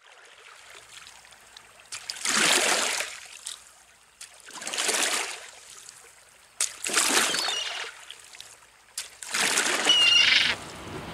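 Sea waves washing onto the shore: four separate swells of surf, each rising and dying away over about a second, roughly every two and a half seconds.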